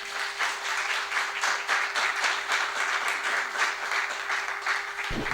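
Congregation applauding, a dense run of many hand claps, with a faint steady hum underneath.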